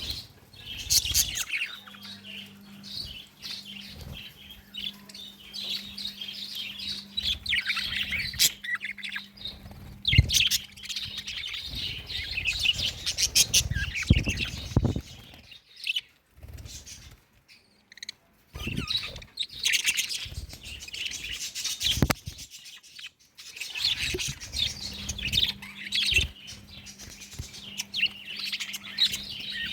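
A cage of budgerigars chirping and chattering busily, with brief lulls and a few low thumps. A faint steady hum sits underneath for stretches.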